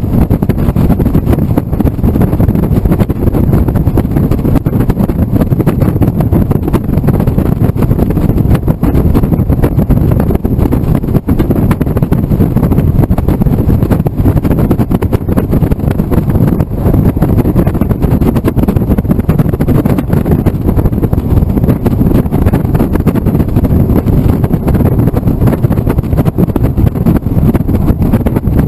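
Steady rush of wind buffeting the microphone, with road noise, inside a Honda S2000 roadster driven top-down at highway speed.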